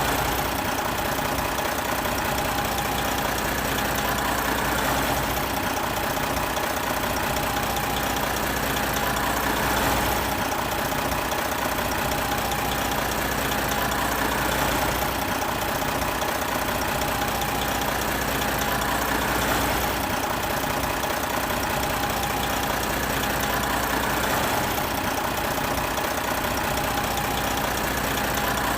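Big truck diesel engine idling steadily, with a low rumble and a slight swell in the sound about every five seconds.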